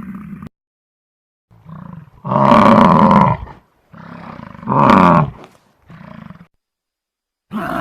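Buffalo calling: a series of low, pitched calls separated by short silences, two loud ones of about a second each with quieter grunting calls between them, and a new long call starting near the end.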